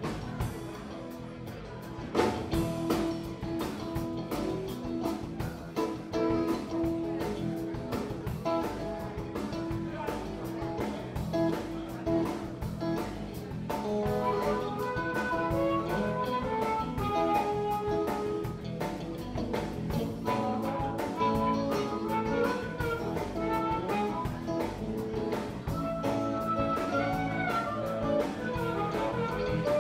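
Instrumental background music with a steady beat; a melody line comes in about halfway through.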